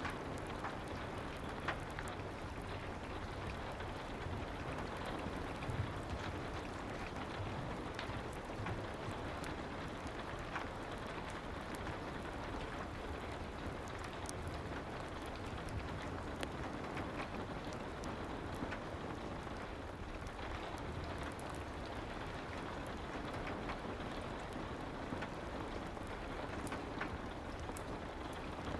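Steady soft rain ambience, an even hiss with scattered light clicks throughout.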